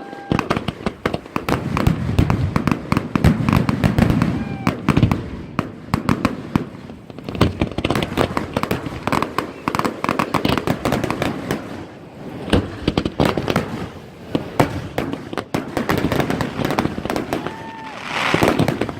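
Fireworks display: a rapid, dense string of bangs and crackles going off without a break, with a few short whistling tones among them.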